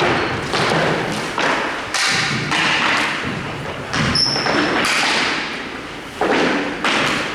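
Hard impacts against hockey rink boards: about seven heavy thuds at uneven spacing, each ringing out in the arena.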